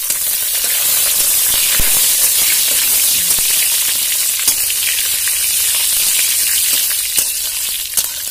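Curry leaves, bay leaves and dried red chillies sizzling loudly in hot oil in a metal kadhai while a tempering is fried. A metal spatula stirs them, with a few sharp scrapes and taps against the pan.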